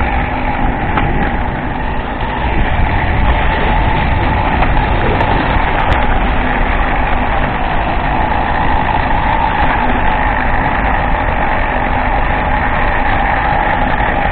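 Motor vehicle engine running steadily with road and rumble noise, no change over the whole stretch.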